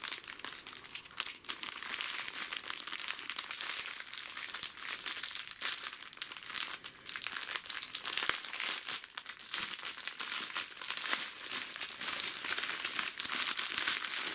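Small plastic bags of diamond-painting drills crinkling and rustling as they are handled: a dense, continuous crackle.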